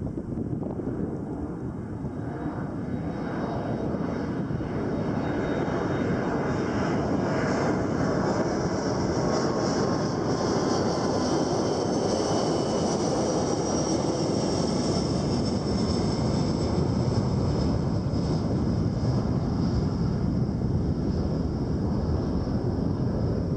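An airplane flying over. Its engine noise swells over the first several seconds and then holds steady, with a high whine that slowly falls in pitch.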